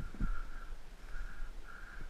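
A bird giving short hoarse calls, about three in quick succession, with a low thump just after the start.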